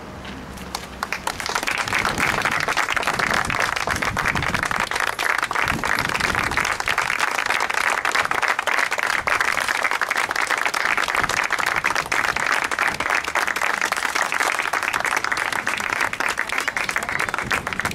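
A small group of people applauding by hand, starting about a second in and keeping on steadily.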